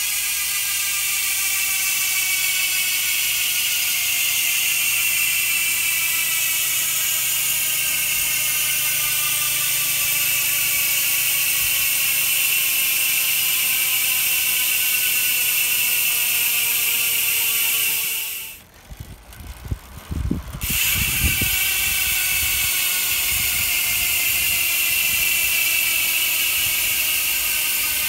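Strummer 350 mountain bike freehub ratcheting as the rear wheel coasts: a loud, high, wasp-like buzz whose pitch slowly falls as the wheel slows. About two-thirds of the way through it cuts out for a couple of seconds, with a few low knocks, then starts again at full speed.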